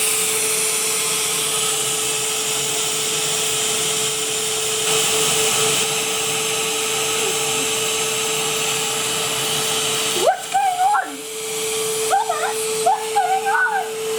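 A Henry vacuum cleaner runs steadily with a constant hum and whine. About ten seconds in, a high, wavering voice cries out over it several times.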